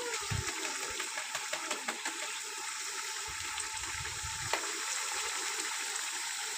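Chicken and masala sizzling and simmering in an aluminium pot over a wood fire, a steady hiss with many small pops, as the chicken is fried down in its masala (the bhunai stage).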